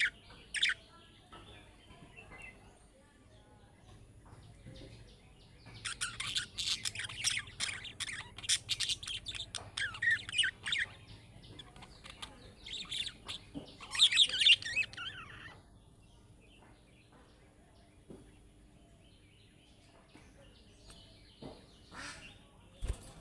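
Budgerigar chirping and chattering in quick high twitters. The calls come in bursts, the longest running about five seconds, with quieter gaps between.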